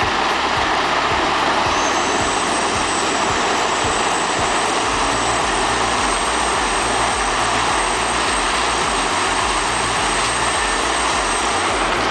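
Large horizontal wood grinder, driven by a big diesel engine, running steadily under load with a dense, loud roar. A thin high whine sits over it from about two seconds in until just before the end.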